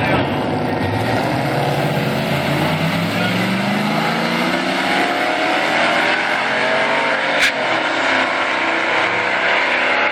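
Pickup truck's engine at full throttle, launching down a drag strip, its pitch climbing for several seconds as it pulls away. There is a single sharp crack about seven and a half seconds in.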